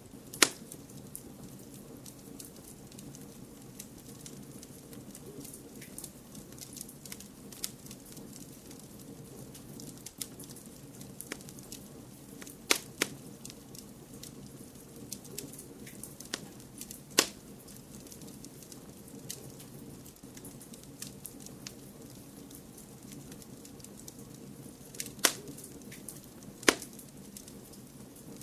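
Wood fire crackling in a fireplace: a steady low hiss with many small crackles and half a dozen sharp, loud pops scattered throughout, the first right at the start.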